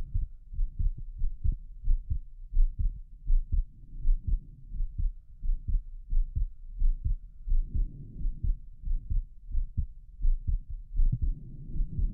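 A human heart heard through a stethoscope, beating fast: quick, regular lub-dub pairs of low thumps, sped up by excitement. A rubbing noise joins the beats about two-thirds of the way in and again near the end.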